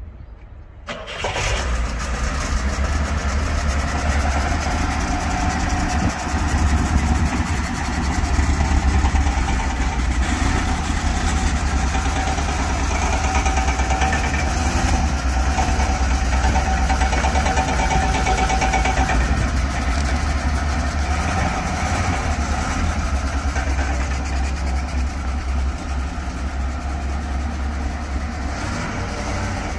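BMW 2002's four-cylinder engine starting about a second in, running a little louder for a few seconds, then idling steadily.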